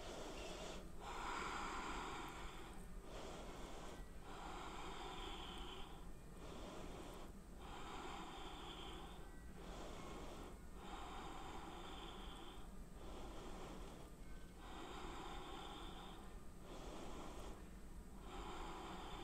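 A woman breathing slowly and audibly while holding a one-legged standing balance. The breaths are faint and even, each about two seconds long with a short pause between, about six in all.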